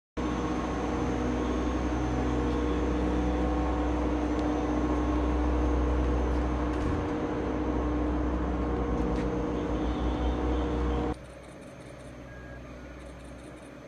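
A running engine, heard as a steady hum with a deep rumble and a few fixed tones, which cuts off abruptly about eleven seconds in and leaves a much quieter background hum.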